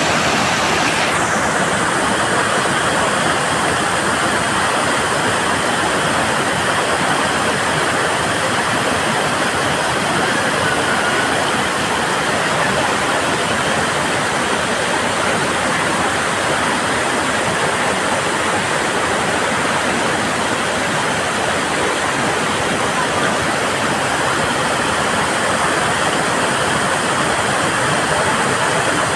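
Tall waterfall in heavy flow: a loud, steady rush of falling water.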